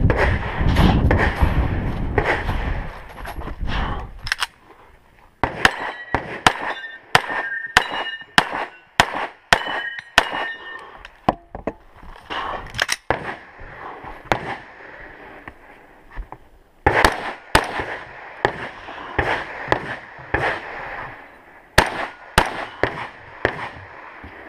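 Gunshots fired during a 3-gun practical shooting stage: runs of quick shots with short pauses between them, some followed by a brief metallic ringing. Low rumbling handling or movement noise fills the first few seconds.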